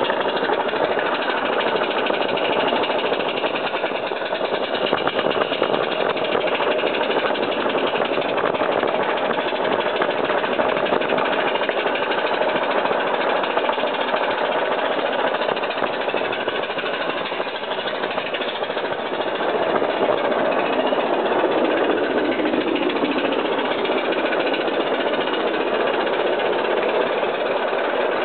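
G scale live steam locomotive, Lady Anne, working hard with a heavy train, heard from a wagon just behind it: rapid, steady exhaust chuffing mixed with the rattle of wheels and wagons on the track.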